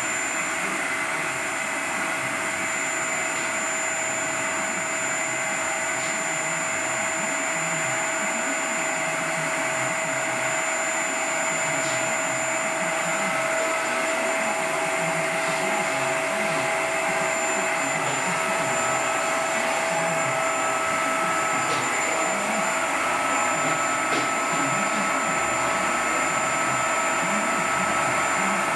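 Vacuum cleaner running steadily, a loud motor whine over a rushing noise, with the pitch shifting slightly about three quarters of the way through.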